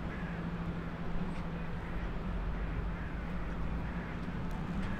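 Steady distant city traffic rumble with a constant low hum.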